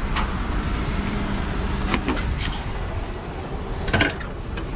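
Heavy truck diesel engine running steadily, with a few sharp metallic knocks; the loudest knock comes about four seconds in.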